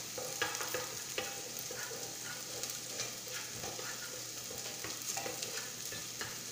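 Sliced shallots and whole spices sizzling in hot ghee in a pressure cooker, stirred with a spoon: a steady frying hiss with short scrapes and clinks of the spoon scattered through it.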